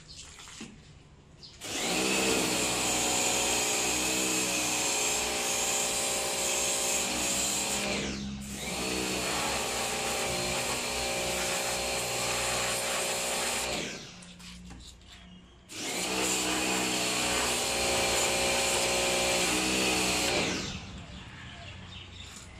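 Electric pressure washer's motor and pump running with a steady whine. It runs for about twelve seconds with a brief wind-down and restart partway through, stops for a couple of seconds, then runs again for about five seconds.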